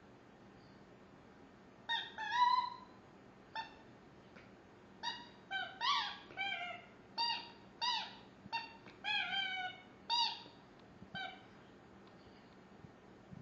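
Rubber Angry Birds Pig General squeaky chew toy squeaking again and again in short, irregular squeaks, some bending in pitch, as a shih tzu puppy chews on it. The squeaks start about two seconds in and stop near the end.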